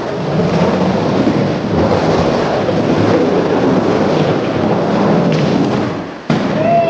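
Skateboard wheels rolling and carving in a wooden bowl: a continuous loud rumble that fades about six seconds in and then cuts off abruptly into another rolling sound.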